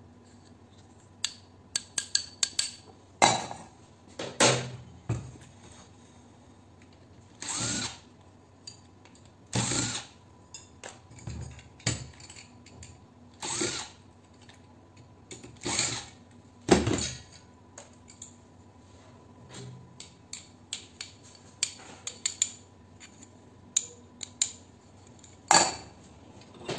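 Cordless drill-driver run in short bursts, about ten times, taking screws out of a light fixture, with sharp clicks and clinks of small metal parts between the bursts.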